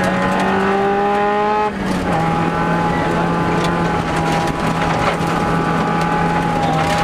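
Subaru Impreza WRX STI rally car's turbocharged flat-four engine running hard at steady revs, heard from inside the cabin over gravel road noise. The engine note dips briefly about a second and a half in, then holds steady again at a slightly lower pitch.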